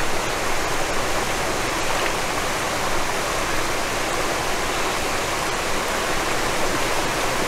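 Steady rush of river water flowing over the rocks of the shore shallows.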